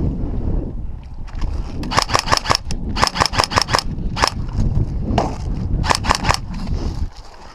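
Airsoft rifles firing in quick strings of sharp snapping shots, about four strings from around two seconds in, over a low rumble on the microphone.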